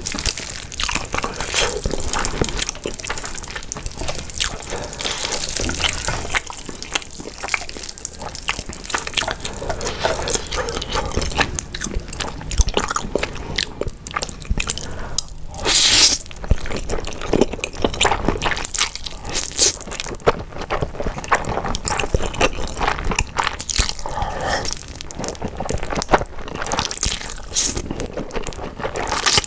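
Close-miked eating of saucy spicy stir-fried ramen noodles (Samyang Haek Buldak): chopsticks lifting the noodles, wet slurping and chewing with many small sticky mouth clicks. A louder slurp comes about halfway through.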